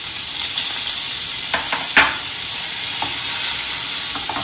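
Butter sizzling as it melts in hot oil in a kadhai, a steady frying hiss. A few sharp clicks of a utensil against the pan, the loudest about two seconds in.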